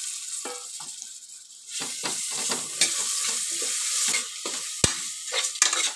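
Tomatoes, onions and spices sizzling in hot oil in a pressure cooker while a ladle stirs them, scraping and knocking against the pot. The sizzle grows louder about two seconds in, and there is one sharp knock nearly five seconds in.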